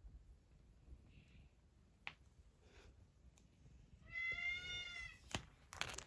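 A domestic cat meows once, one drawn-out call of nearly a second about four seconds in, over faint room tone. A sharp knock and brief rustling follow near the end.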